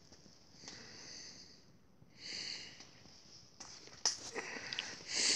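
Breathing and sniffing close to the microphone: soft puffs of breath come and go every second or two, and there are a couple of sharp handling clicks near the end.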